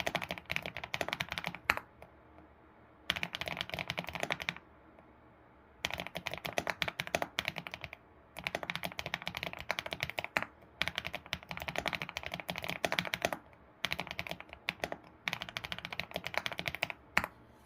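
ABKO computer keyboard being typed on in quick runs of clacky keystrokes, broken by short pauses of about a second between phrases.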